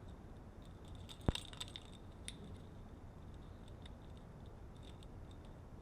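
Small clicks from a Jeep door lock cylinder and its key as the key is worked out of the lock. There is one sharp click about a second in, followed by a few lighter clicks.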